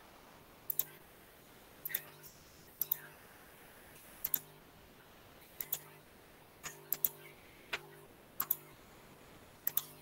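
Computer mouse clicking in quick pairs, about one pair a second, as spreadsheet windows and their save dialogs are closed one after another.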